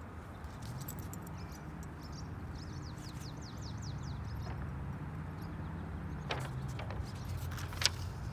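Outdoor ambience: a low steady rumble, with a bird singing a quick run of high falling notes about three seconds in and a few sharp clicks near the end.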